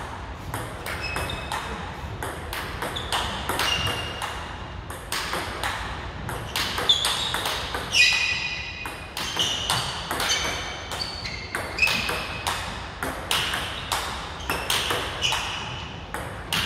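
Table tennis rally: a plastic ball clicking off the paddles and bouncing on the table, two to three hits a second, each with a short ringing ping. One player is chopping the ball back from well behind the table.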